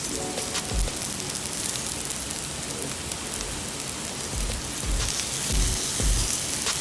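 Background music with a low, regular beat over a steady hiss.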